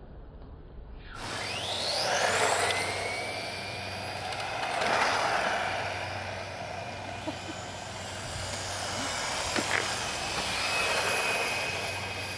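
Electric radio-controlled cars' motors whining and tyres rushing on asphalt, swelling and fading as the cars speed by, with a whine rising in pitch about two seconds in and a few light clicks.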